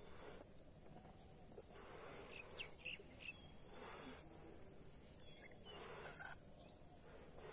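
Faint breathy puffs of air blown by mouth into rubber balloons, four or so, each about half a second long, over a steady high hiss with a few short bird chirps in the middle.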